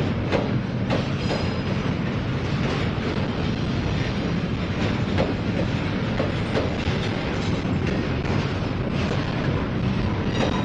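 Double-stack intermodal freight cars rolling past, their steel wheels making a steady rolling noise with irregular clicks on the rails.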